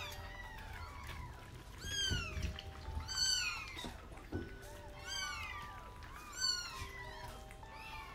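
Young kittens mewing: a string of about five or six high-pitched, rising-and-falling mews, spaced a second or so apart. They come from kittens waiting their turn to be bottle-fed.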